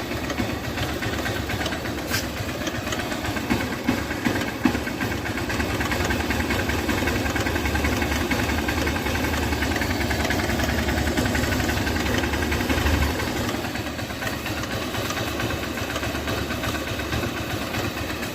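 Hero Honda Hunk's single-cylinder engine idling just after a start, with a rhythmic tak-tak-tak ticking from inside the engine. The owner suspects the piston or timing chain; his mechanic put it down to the timing chain tensioner, a noise that comes when the engine is cold and goes once it is hot.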